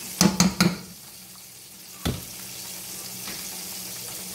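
Metal spoon knocked three times in quick succession against a nonstick frying pan as butter is dropped in, then one more knock about two seconds in. Underneath, butter starting to sizzle faintly as it melts in the hot pan.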